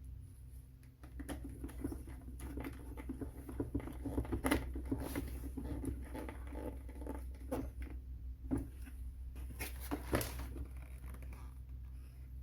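Scattered small clicks, taps and rustling from handling a rice cooker's replacement power cord and its plastic parts, with one or two sharper knocks about four and a half and ten seconds in.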